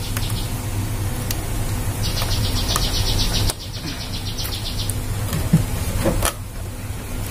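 Wiring-harness connectors being unplugged one by one from a photocopier's DC controller board, giving a few faint clicks over a steady low rumble. A rapid pulsing high buzz runs for about three seconds in the middle.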